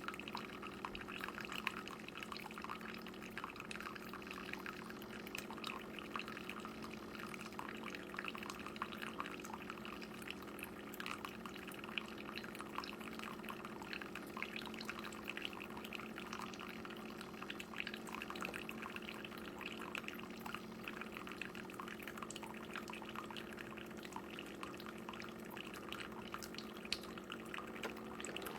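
Single-serve pod coffee maker brewing: a steady pump hum under hot coffee streaming and dripping into a cup.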